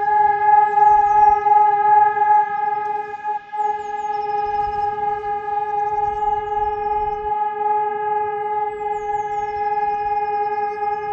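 Helin electronic civil-defence sirens sounding the steady all-clear tone, one unwavering pitch held throughout: the continuous one-minute Dauerton that signals the all-clear. Faint bird chirps sound above it.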